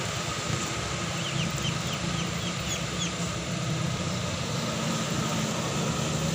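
Light dump truck's engine running as it climbs a steep grade, over steady road noise. A bird gives a quick string of about eight short high chirps from about a second in.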